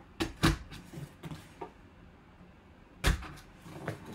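Cardboard box being handled and opened: a knife slits the packing tape along its seam and the box is tipped over. A few short knocks and scrapes, with a louder knock about three seconds in.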